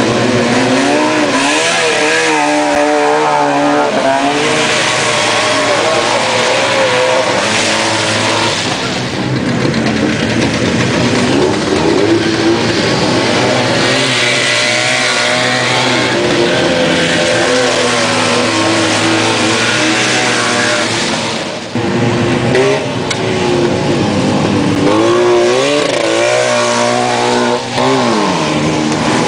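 Racing Trabants' small two-stroke engines revving hard as the cars come by one after another, the engine pitch climbing and falling again and again with the throttle.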